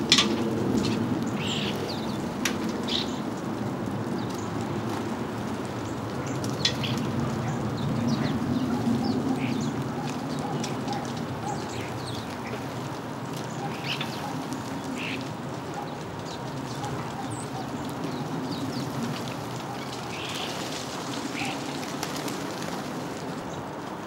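House sparrows chirping: short, scattered calls from a feeding flock, over a steady low background rumble.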